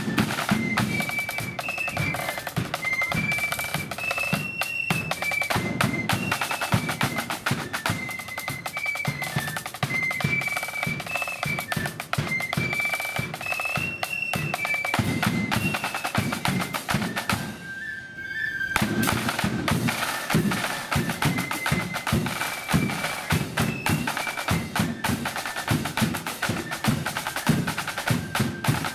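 Blood-and-thunder marching flute band playing: a high flute melody over rapid snare drum rolls and heavy bass drum beats. About two-thirds of the way through, the drums stop for a moment while the flutes hold one note, then the drumming starts again.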